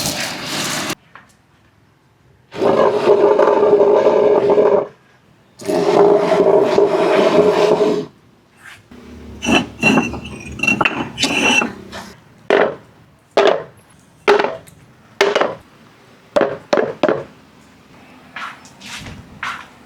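Marbles rolling along wooden tracks. There are two long rolling runs of about two seconds each, with a steady hum ringing from the wood. A string of sharp clacks and knocks follows as marbles drop and strike the wooden pieces.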